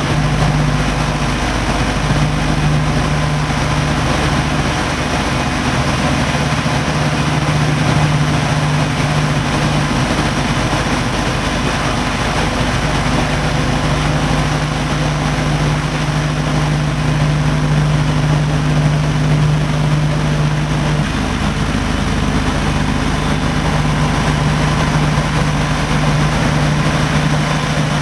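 Twin Wright R-2600 radial engines of a B-25 Mitchell bomber, heard from inside the glazed nose compartment: a loud, steady drone with one deep held pitch while the aircraft descends toward the runway.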